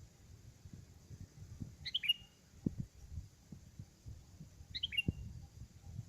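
Sooty-headed bulbul (kutilang) calling twice, a quick cluster of chirping notes each time, used as a decoy to lure wild bulbuls. Under the calls there is a low rumble with soft thumps.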